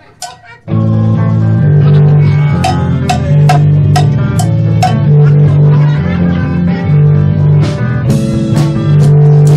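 Live band playing loud rock: electric guitar and drum kit come in together with a sudden hit under a second in, after a brief near-quiet moment, then play on with a heavy low end and steady drum beats.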